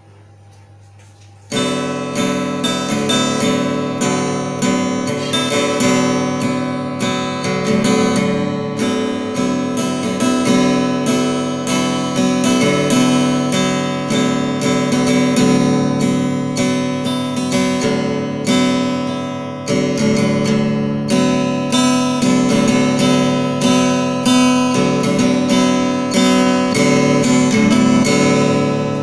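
Mustang acoustic guitar strummed by a beginner: a steady run of chord strokes starting about a second and a half in.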